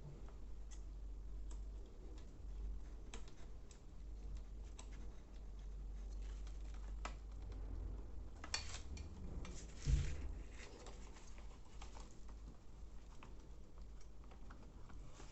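Scattered light clicks and taps of small parts and tools being handled on a workbench, over a low steady hum, with one louder knock about ten seconds in.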